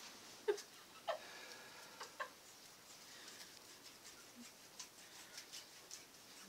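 Quiet hand-handling noises: a few soft clicks and rustles in the first couple of seconds, then faint scattered ticks, as ribbon is wound by hand into a ball.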